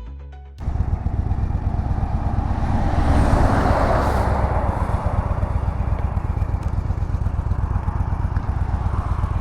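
Motorcycle engine running at road speed, with steady wind and road rush on the on-bike microphone. The rushing noise swells louder about three seconds in.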